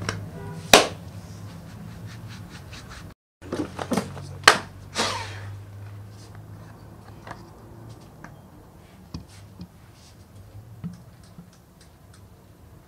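Stiff folded card being unfolded and handled close to the microphone: scattered rustles and sharp crackles, the loudest once near the start and a cluster around the middle, over a steady low hum.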